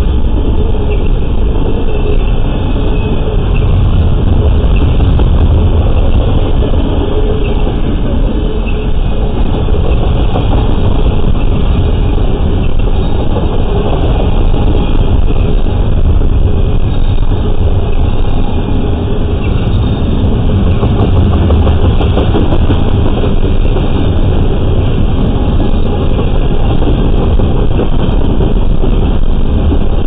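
Double-stack intermodal train rolling past close by: a steady, loud rumble of loaded well cars' steel wheels on the rails.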